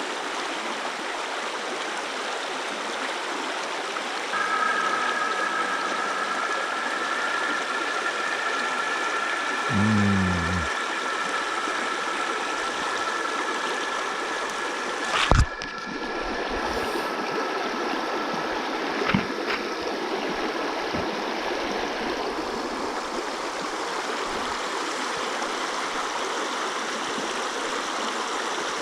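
Mountain stream flowing: a steady rush of water. A faint steady two-note high tone runs through the first two-thirds, and a single sharp knock comes about halfway through.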